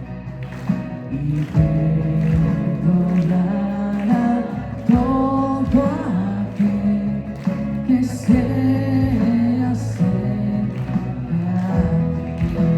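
Live worship band playing a song, with drums, bass, guitars and piano under singing; a cymbal crash comes about eight seconds in.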